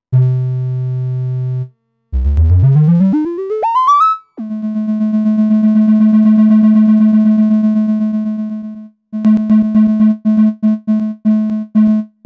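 Analog synthesizer voice, a triangle-wave oscillator passed through voltage-controlled amplifiers shaped by an ADSR envelope and key velocity, playing notes. First comes one held low note, then a quick run of notes climbing steeply in pitch. After that a long held note swells and fades, and near the end a string of short staccato notes repeats at one pitch.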